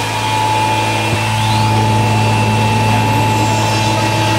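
YL 48152R+B CNC router's spindle running steadily as its bit cuts grooves into a wood panel: a continuous machine hum with a few steady higher tones over it.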